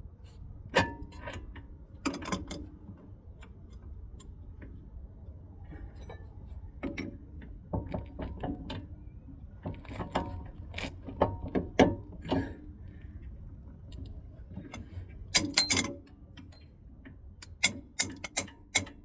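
Hand wrenches and metal steering parts clinking and clicking during tie-rod work: irregular sharp metallic clicks and knocks, with a quick cluster of loud clicks about three-quarters of the way in and four sharp clicks near the end.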